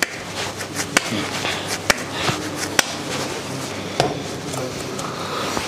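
Hands patting and shaping a soft ball of bread-crumb dough, with a few sharp slaps about a second apart, over a steady low hum.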